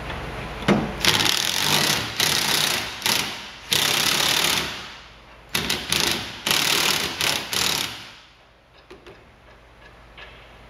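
Cordless drill/driver run in a string of short bursts, backing out the Torx bolts that hold the Jeep Wrangler JK's windshield bracket. The bursts stop about eight seconds in, followed by a few light clicks.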